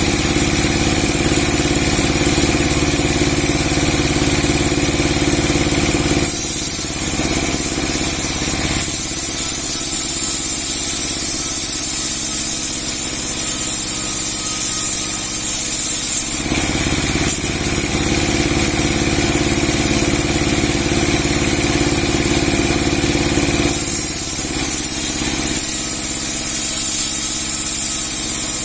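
A 30 hp log-sawing machine with a 60 cm steel blade running steadily. Its sound shifts twice into a different steady state with more high hiss, from about 6 to 16 seconds in and again near the end.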